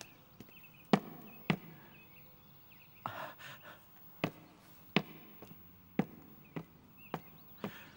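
Footsteps climbing a wooden staircase: a series of hollow knocks on the treads, about one every half second to a second, with faint bird chirps behind.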